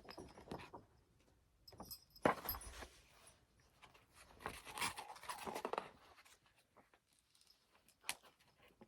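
Thin paper pages being turned and handled: a few soft rustles and scrapes, with a single light tick near the end.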